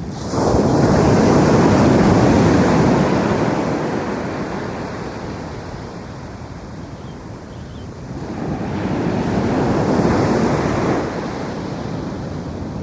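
Ocean waves breaking on a beach, twice. The first wave crashes in suddenly right at the start and washes out over several seconds; the second builds about eight seconds in and falls away about three seconds later.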